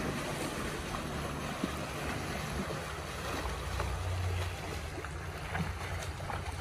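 Motorboat engine running steadily as the boat approaches, a low drone, with wind and water noise.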